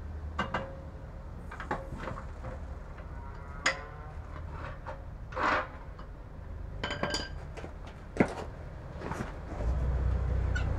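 Scattered metallic clinks and knocks of a floor jack and its steel handle being worked, with short ringing metal notes a few times. A low rumble comes in near the end.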